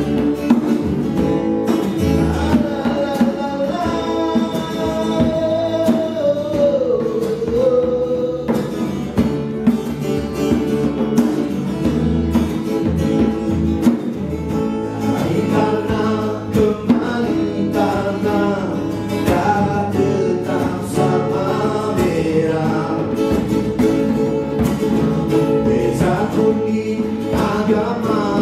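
Live acoustic music: a man singing a slow melody over a strummed acoustic guitar, with a hand drum struck in a steady rhythm underneath.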